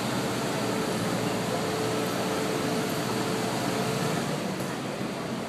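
Steady rushing air noise from a running fan, with a faint steady hum that fades out about four seconds in.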